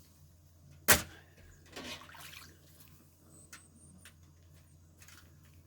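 Cooked Dungeness crabs being handled at the pot: one sharp knock about a second in, then a brief rushing noise, over a low steady hum.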